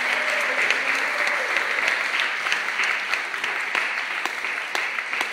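Audience applauding, the clapping slowly thinning out.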